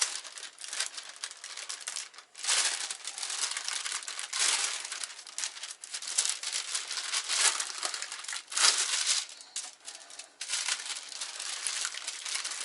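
Wax paper crinkling and rustling in irregular bursts as it is handled and folded around cookie dough to roll it into a log.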